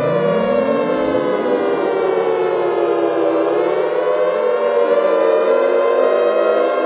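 A loud, steady, siren-like wailing drone made of many stacked tones; several low tones glide upward in pitch over the first few seconds, then the whole mass holds.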